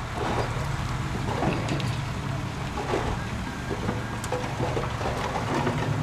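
Diesel engine of heavy earthmoving equipment running steadily with a low hum.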